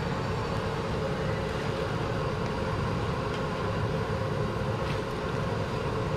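Raw banana bajji deep-frying in a large kadai of oil over a gas burner: a steady low rush from the burner under the hiss and sizzle of the frying oil.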